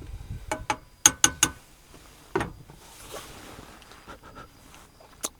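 Spoon knocking and clinking against a pot while stirring oatmeal, in a string of sharp taps, some with a short metallic ring, with a soft scraping hiss between them.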